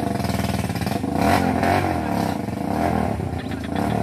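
Motorcycle engine revving hard under load on a steep climb, its pitch rising and falling as the throttle works. A brief rattle of clattering comes near the end.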